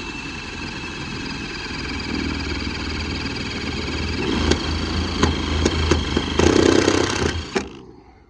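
Power drill driving a self-tapping screw into a sheet-metal panel: the motor runs steadily and grows louder under load, with a few sharp clicks, then cuts off suddenly near the end as the screw seats.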